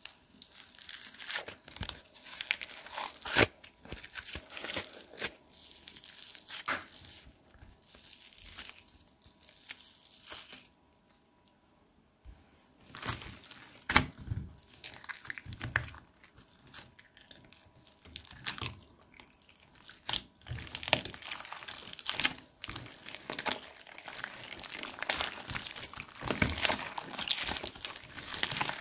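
Foam-bead slime, clay and clear slime being squeezed and kneaded by hand: a stream of irregular crackles, crunches and crinkles, with a short pause about eleven seconds in and denser crackling near the end.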